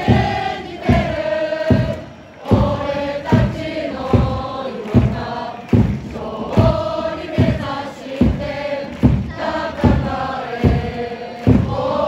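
Football supporters chanting together in a stand, a mass of voices singing a chant over a steady beat that comes just over once a second.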